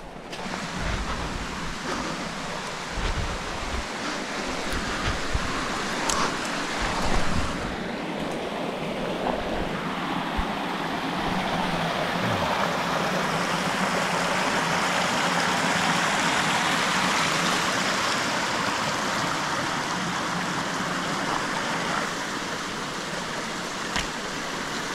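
A small mountain stream rushing and splashing over rocks, steady throughout. In the first several seconds, rustling and a few knocks from pushing through brush sit over the water.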